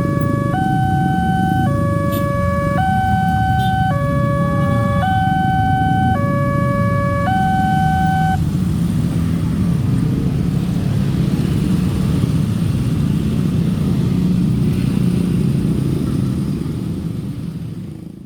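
Railway level-crossing warning siren sounding an electronic two-tone alarm, switching between a higher and a lower pitch about every half second, that stops about eight seconds in. A loud low rumble runs underneath throughout and fades away near the end.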